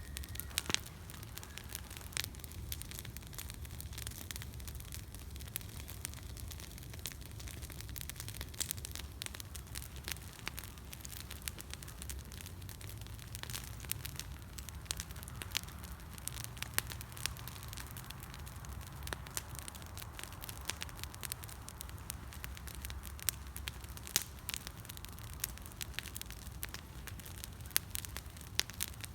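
Small wood campfire crackling, with irregular sharp pops throughout, over a low steady rumble.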